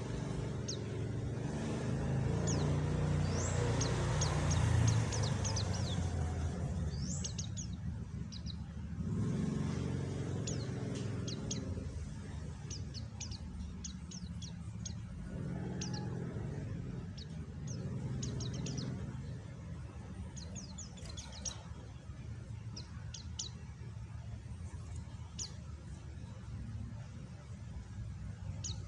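White-eye (pleci) giving short, high chirps in quick runs and scattered single notes, over a low rumble that swells and fades several times.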